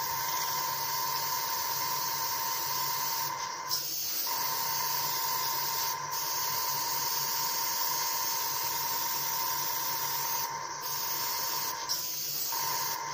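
Harder & Steenbeck airbrush spraying thinned gloss black paint at reduced pressure, a steady hiss that stops for a moment a few times as the trigger is let off. Under it runs a steady whine that cuts out briefly twice.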